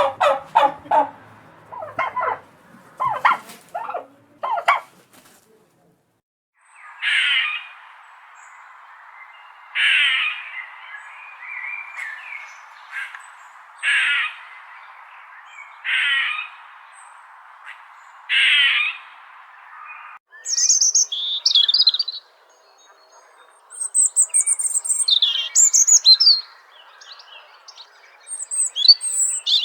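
Bird calls from three different recordings in a row: first a quick run of calls, then one call repeated about every two to three seconds over a steady hiss, then high chirping and twittering.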